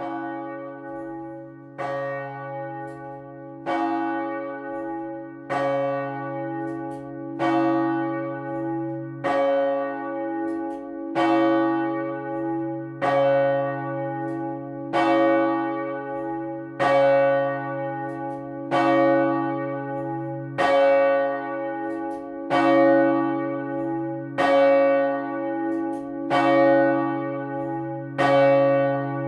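A 2000 kg bronze swinging church bell tuned to C-sharp (Jozef, cast 1935 by Marcel Michiels Jr) rung alone, its clapper striking about every two seconds. The tone hangs on between strokes, which come sixteen times in all. The ringing starts at the very beginning and grows louder over the first several strokes as the swing builds.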